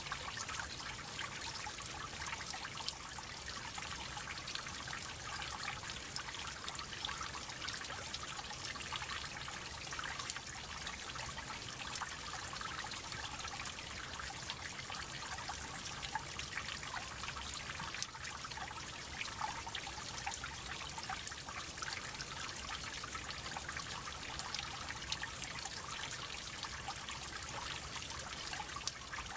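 Water droplets falling steadily: many small drops splashing in quick, irregular succession over a continuous trickle.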